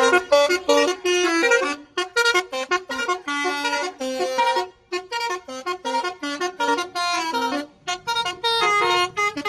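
Bus telolet horn playing a fast melody of short, pitched horn notes, with brief breaks about two seconds in, around five seconds and near eight seconds.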